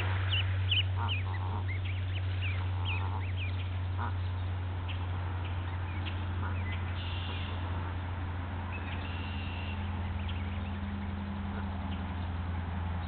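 Canada goose goslings peeping, many short high chirps crowded into the first few seconds and thinning out later, with a few short calls from the adult Canada geese. A steady low hum runs underneath.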